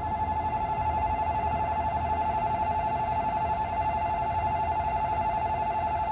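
Railway level-crossing warning bell ringing in a fast, steady repeat, two high tones sounding together, warning that a train is approaching.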